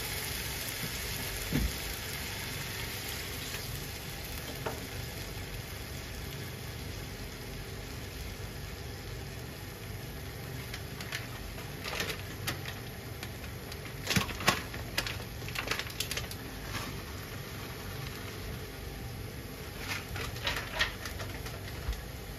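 Kimchi-and-tofu broth heating in a frying pan on a gas stove. A steady hiss runs under it, with a soft knock about two seconds in, then clusters of small pops and crackles about halfway through and again near the end as the broth starts to bubble.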